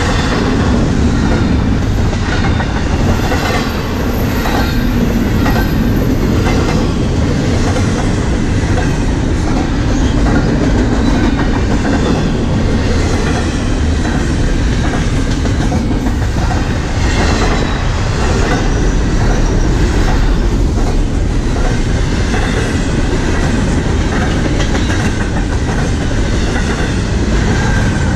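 Double-stack container cars of a freight train rolling past close by: a loud, steady rumble of steel wheels on rail, with irregular clicks as the wheels cross the rail joints.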